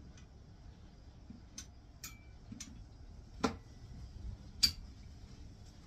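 Light clicks and taps from tools being handled, scattered and faint, with two sharper clicks about three and a half and four and a half seconds in.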